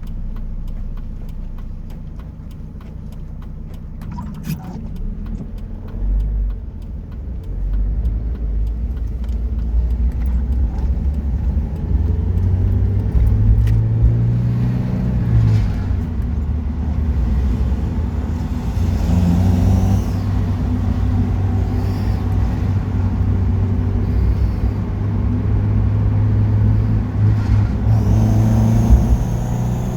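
NA Mazda Miata's four-cylinder engine pulling under throttle while driving, its pitch climbing and dropping twice, with a high whirring whine that comes in at higher revs. The owner suspects a clogged or broken catalytic converter behind the whine and the loss of power that comes with it.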